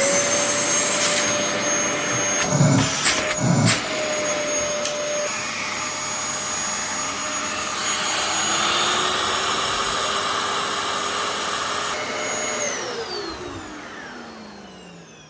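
Dyson DC14 Animal upright vacuum cleaner switched on and running with a steady high whine and rushing air, with a couple of knocks about three seconds in. About twelve seconds in it is switched off, and the motor winds down with falling pitch.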